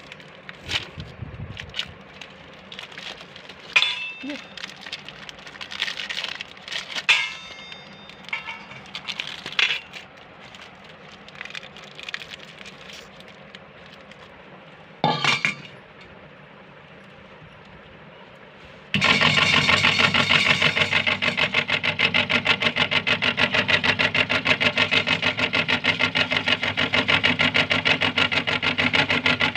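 Scattered crackles and clinks, then about two-thirds of the way in a meat grinder starts abruptly and runs steadily with a fast, even rattle as it grinds cookies.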